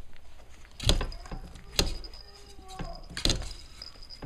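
Five-week-old Cavalier King Charles Spaniel puppies scuffling in play: three sharp knocks and bumps, with a faint short whimper between the second and third.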